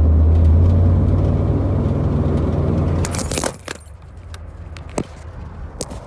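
Car engine and road noise heard inside the cabin as a steady low rumble, fading out about three seconds in. Then a burst of rustling and scattered clicks as the phone recording it is handled.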